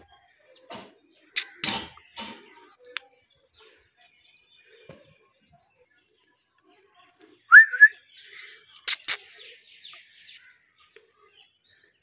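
Alexandrine parakeet calling in bursts: a few short sharp calls near the start, a loud whistled note that rises and falls about seven and a half seconds in, then two more sharp calls and soft chatter.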